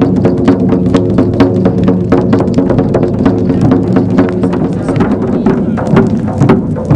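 Hand-held frame drums beaten in a fast, steady rhythm, several strokes a second, over low held tones.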